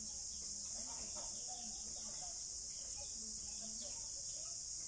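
Steady, high-pitched insect chorus droning without a break, with faint, scattered lower chirps or calls beneath it.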